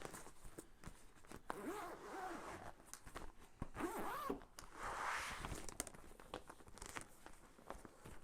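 Plastic packaging of an electric blanket being handled: rustling and crinkling with many small clicks and a few short squeaks.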